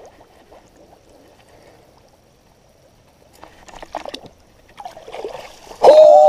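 Shallow pond water trickling and sloshing around a wader's legs, then splashing from about three seconds in as hands plunge into the water after a snapping turtle. Near the end a loud voice cries out.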